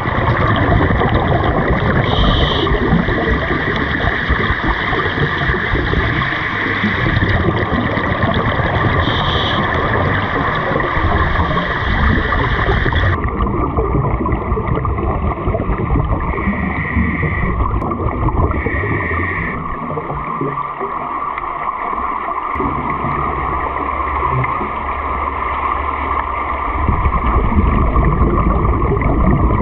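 Underwater sound of a scuba diver breathing through a regulator: a steady noisy wash of exhaled bubbles and gurgling, with a few brief higher hisses.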